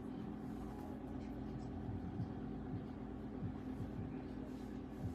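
A steady low hum with faint, indistinct sounds underneath.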